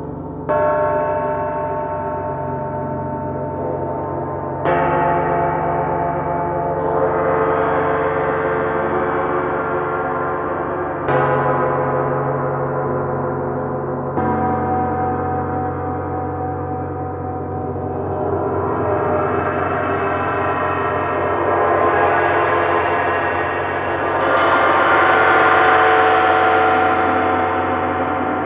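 Several large suspended bronze gongs, including a 32-inch Sound Creation Earth gong and a 28-inch Planet Jupiter gong, struck with mallets: four separate strikes land about half a second, five, eleven and fourteen seconds in, each adding to a dense, shimmering wash. Over the last ten seconds the sound swells steadily to its loudest near the end as the two top gongs are played together.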